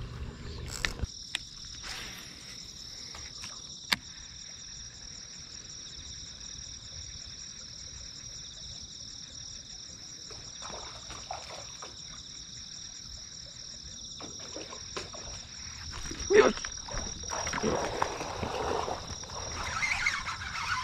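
Crickets trilling steadily in a high pitch through the night air. A few sharp clicks sound in the first four seconds, and louder irregular handling noises come near the end.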